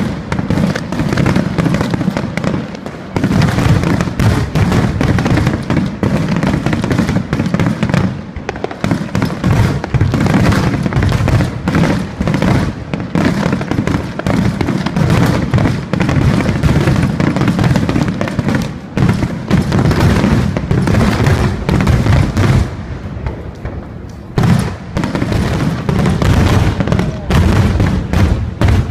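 Barrage of aerial firework shells bursting in quick succession, a dense run of booms and crackles with only brief lulls.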